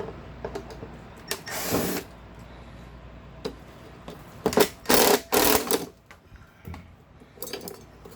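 Power drill run in short bursts, one about a second and a half in and three close together around five seconds, backing out the screws and bolts that hold the key machine down to its wooden crate base.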